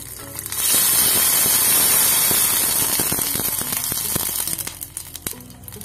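Water poured into a small pan of hot oil tempered with mustard seeds and curry leaves: a sudden loud hiss and sputter with crackles about half a second in, fading away over the next few seconds as the water boils up.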